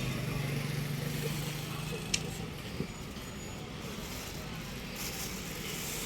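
A motor engine's steady hum that fades away about two and a half seconds in, with a sharp click just after two seconds.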